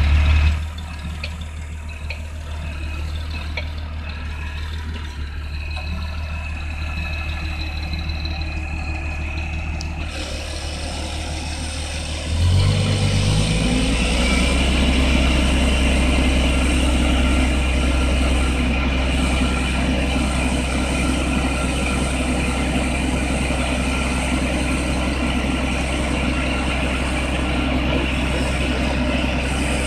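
Diesel engine of a Vredo VT 4546 self-propelled slurry applicator running at a steady low speed. About twelve seconds in it revs up and holds steady at the higher revs.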